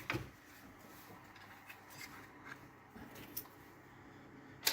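Quiet handling of a filament spool and the filament strand: faint rubbing and a few light clicks, with one sharp click near the end.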